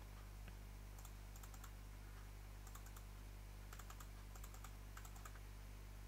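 Faint, scattered clicking of computer controls, in small clusters of two or three. A steady low electrical hum runs underneath.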